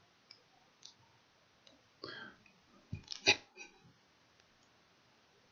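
A few faint computer mouse clicks and desk sounds: light clicks in the first two seconds, a short rustle about two seconds in, and a louder sharp click or knock a little after three seconds.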